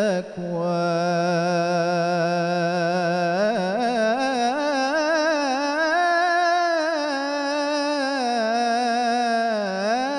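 A male solo voice sings one long, ornamented melisma of an Arabic devotional song, holding a single vowel with vibrato. The line climbs in pitch a few seconds in and dips again near the end.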